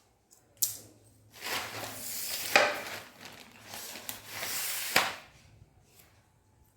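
A fine-toothed nit comb drawn through heavily oiled hair: two long rasping strokes, each ending in a sharp tick, with a single tick shortly before them.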